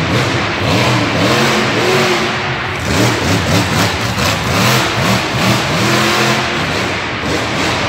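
Monster truck engine revving hard, its pitch climbing and dropping in repeated surges as the truck jumps and drives past close by.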